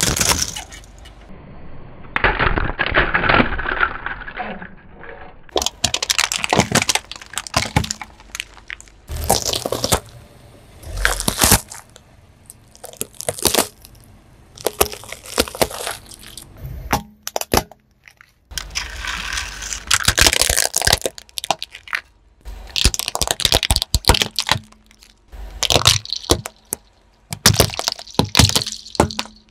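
Objects cracking and crunching as they are crushed under a car tyre, one burst after another with short pauses between them.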